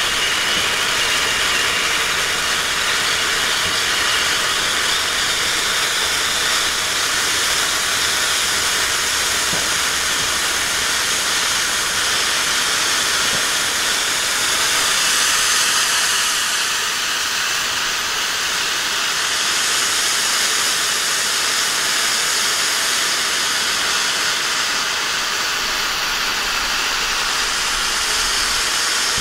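Firework fountain (Whiteout volcano) and a red Bengal fire pot burning together on the ground, the fountain spraying sparks with a loud, steady hiss.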